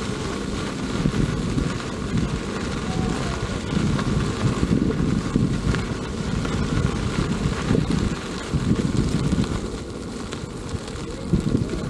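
Wind buffeting the camera microphone while riding an electric unicycle at speed: a gusty low rumble that swells and fades unevenly, with a faint steady whine higher up.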